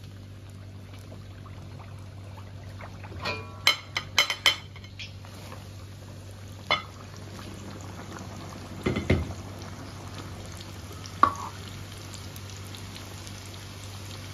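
Strips of pressed cooked rice (guoba, rice crust) deep-frying in oil at moderate heat: a steady sizzle, with a quick run of clinks and knocks about three to four seconds in and a few single knocks later.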